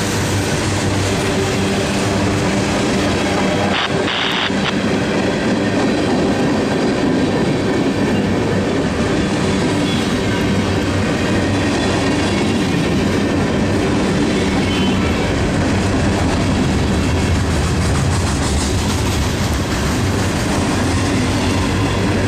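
Freight cars of a mixed manifest train (boxcars, tank car, covered hoppers) rolling steadily past, their steel wheels running on the rails. A brief high-pitched tone about four seconds in.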